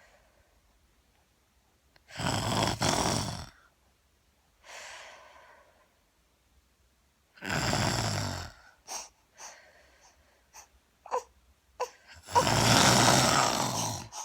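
A woman snoring loudly, three long rasping snores about five seconds apart, with a quieter breath between the first two.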